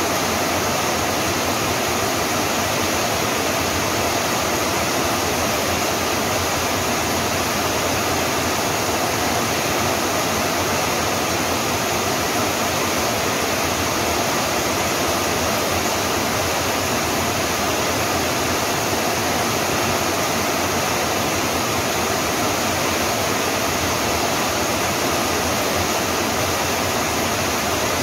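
Steady rain falling: an even, unbroken hiss, with no single drops or thunder standing out.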